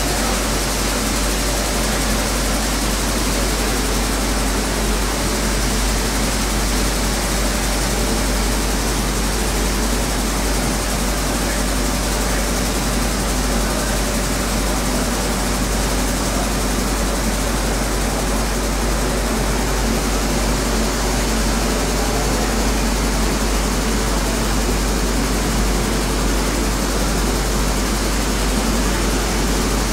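Fully automatic stone atta chakki flour mill plant running: its electric motors, blower and stone mills make one steady, loud mechanical drone with a deep hum underneath.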